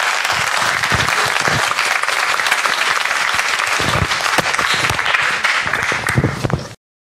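Audience applauding at the close of a talk, a steady patter of many hands clapping that cuts off abruptly near the end.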